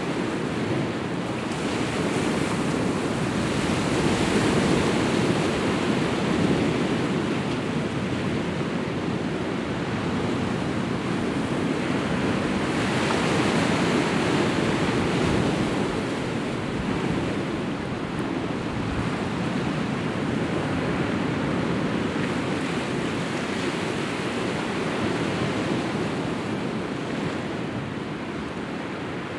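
Sea surf breaking over a rocky shore: a steady wash of waves that swells and ebbs every several seconds.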